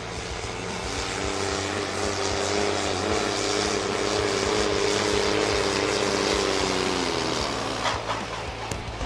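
Fendt pulling tractor's diesel engine running hard under full load, dragging the weight-transfer sled. Its pitch holds fairly steady, then sags and the sound falls away about seven seconds in as the pull ends.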